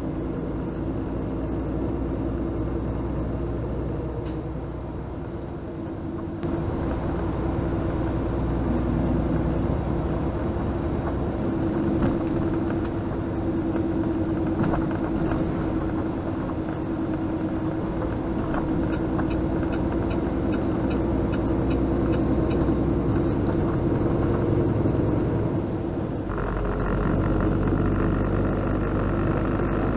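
Semi-truck diesel engine droning steadily under load, with road and wind noise, heard inside the cab. The sound steps up in level and brightness about six seconds in and again near the end.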